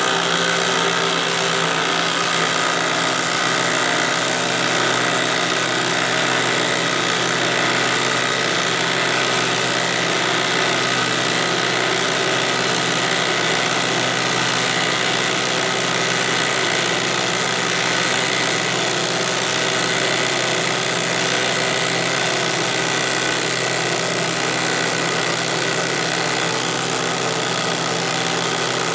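Brushed 20-volt cordless impact driver hammering steadily under load as it drives a thick lag screw into wood through a 3/4-inch socket.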